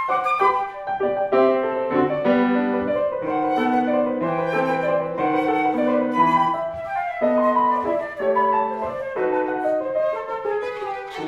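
A small instrumental trio playing: a flute melody of held and moving notes over piano accompaniment.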